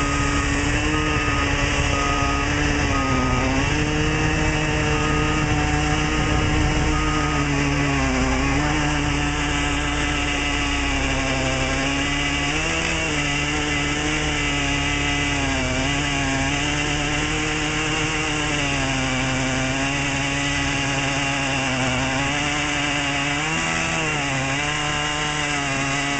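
An engine running steadily, its pitch wavering slowly up and down, while a reversing alarm beeps for the first several seconds.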